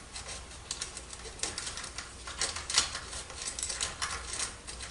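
Irregular small metallic clicks and light taps of hardware being handled: a joining plate with T-nuts on its screws being slid and fitted onto an aluminium V-slot extrusion.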